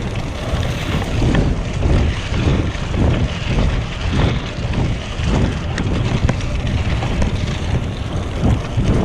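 Wind buffeting a GoPro's microphone on a bicycle riding along a trail: a loud, uneven low rumble that swells and dips.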